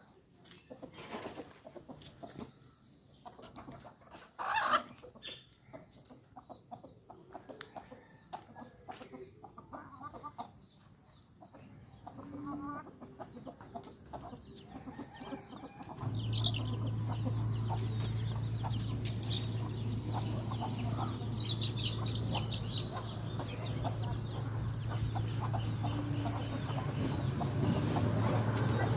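A rooster and hens clucking in short, scattered calls. About halfway through, a steady low hum starts and continues underneath the clucking.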